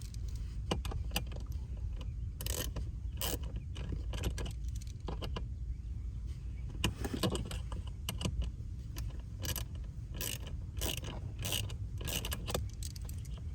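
Hand tools clicking and scraping on metal while bolts are worked loose, most likely the AC compressor's mounting bolts, as irregular clicks over a steady low rumble.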